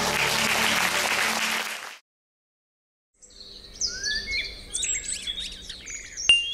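Audience applause that cuts off abruptly about two seconds in. After a second of silence, bird chirps and tweets come in, the sound of an animated logo intro, with a few bright chime strikes at the very end.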